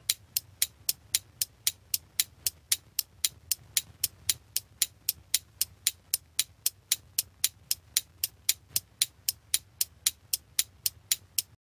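Clock ticking sound effect, a steady run of sharp ticks about four a second, stopping suddenly near the end.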